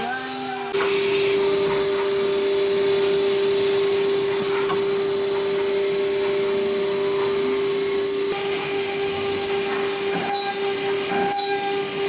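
Steady high whine of a Blue Elephant ELE1325ATC CNC router spindle running while it machines door lock holes in a wood panel. A faint rising whistle joins in the middle, and a second tone comes in past the halfway point.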